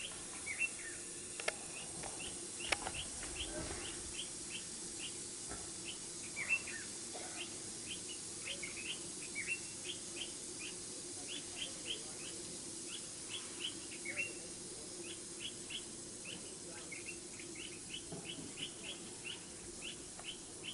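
Birds chirping: short, high chirps repeated about three times a second, with a faint low steady hum beneath and a few soft knocks in the first few seconds.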